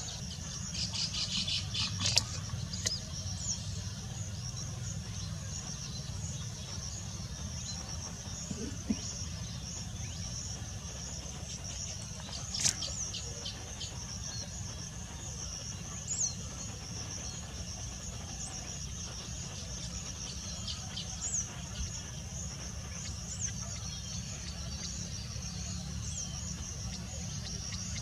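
Steady high-pitched drone of insects with a low rumble underneath. A quick run of repeated chattering notes comes in the first couple of seconds, with a couple of sharp clicks and scattered short bird chirps over it.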